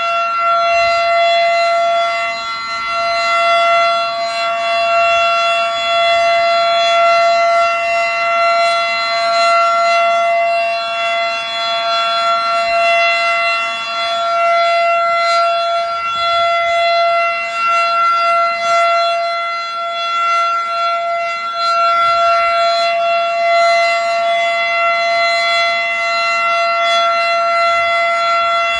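Federal Sign & Signal Model 7 outdoor warning siren sounding the steady full-alert signal: one loud tone held at a constant pitch, its loudness swelling and dipping a little every several seconds.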